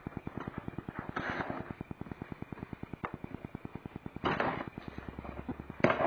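A pocket knife slitting the packing tape along a cardboard box: scratchy rasps of the blade through tape and cardboard, with a sharp click near the middle and two louder tearing rasps near the end as the tape and flap are pulled open.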